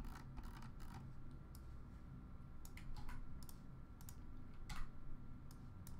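Irregular, scattered clicks of a computer mouse and keyboard, over a faint low hum.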